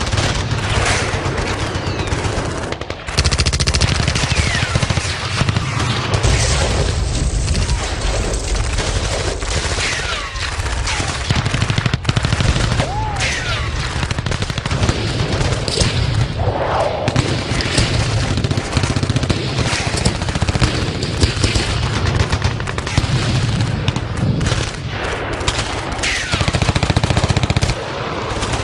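Battle sound effect: dense, continuous gunfire, rapid machine-gun bursts and overlapping shots over a steady low rumble, with occasional short whistling glides.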